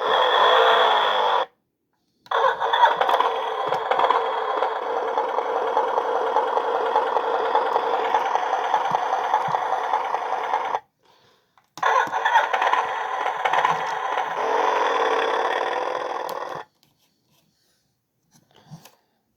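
Recorded motorcycle engine sound played through the small built-in speaker of a miniature Harley-Davidson model, thin, with no deep bass. It plays in three stretches: about a second and a half, then about eight seconds after a short gap, then about five seconds after another gap, stopping well before the end.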